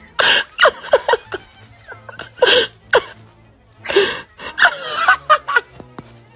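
A person laughing in loud, breathy bursts, three strong ones, with short voiced sounds in between.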